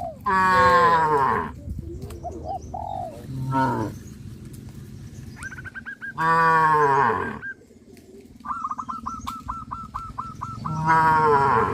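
Cattle mooing in long calls: one about a second in, another around six seconds in, and a third near the end, with a shorter call in between. From about halfway, a bird calls in a fast run of short, high, repeated chirps.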